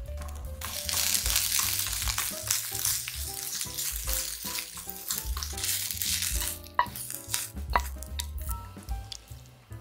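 Sliced green peppers sizzling in hot olive oil in a frying pan as they are dropped in and stir-fried; the sizzle starts about a second in and fades after about six seconds. A few sharp clicks follow near the end.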